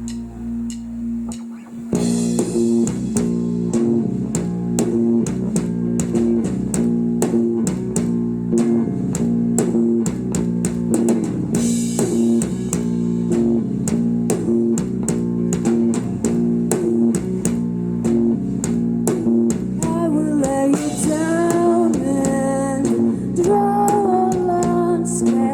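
Live psychedelic rock band playing an instrumental passage. A held, quieter chord gives way about two seconds in to the full band, with drum kit, bass guitar and guitar on a steady beat. Near the end a bending lead melody comes in on top.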